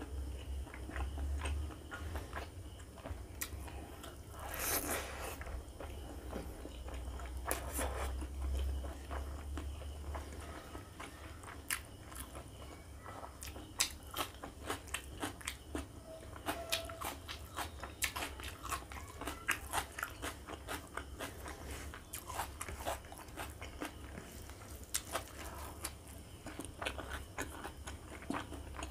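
Close-miked eating sounds of a mouthful of curry-soaked rice eaten by hand: chewing with many short, sharp, wet mouth clicks and smacks, one longer noisy squelch about five seconds in.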